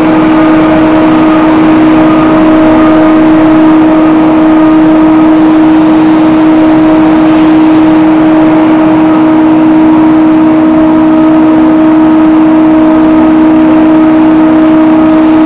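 Hemp processing plant machinery running: a loud, steady industrial drone with a constant pitched hum over it.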